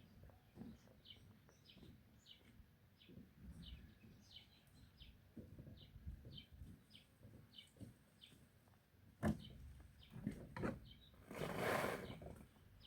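A bird chirping over and over, short high chirps about two a second, with scattered low thuds. A sharp knock comes about nine seconds in, and a louder rush of noise near the end.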